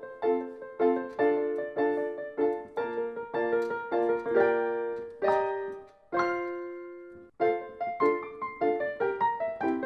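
Background piano music: a light tune of short notes in a steady rhythm, pausing on a held chord that dies away about six seconds in before the rhythm picks up again.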